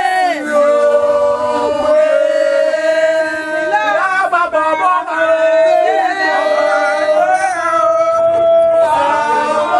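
A group of people singing a chant together, holding long notes that shift in pitch from phrase to phrase.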